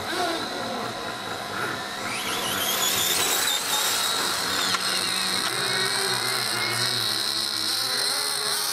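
Radio-controlled car motor whining at speed. The whine rises in pitch about two seconds in as the car accelerates, then holds steady and high.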